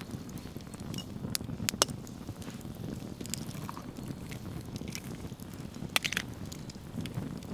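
Eggshell cracked against a knife blade: two sharp clicks a little over a second in, then the egg runs out into an enamel plate. Another sharp click comes near the end, over a low steady rumble in the background.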